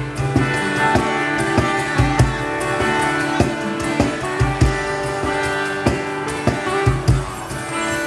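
Band music without vocals: guitar over bass and a drum beat.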